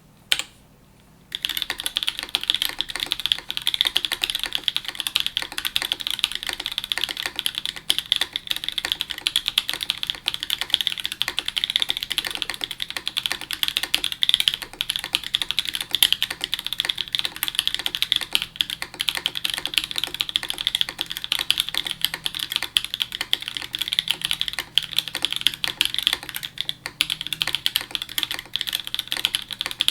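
Typing on a gok Type-K mechanical keyboard with Pleiades Subuwu V2 switches, DMK Third Space keycaps, an aluminium plate, grommet mount and no foam, with its force break pads fitted. A single key click comes first, then from about a second and a half in a fast, continuous stream of keystroke clacks.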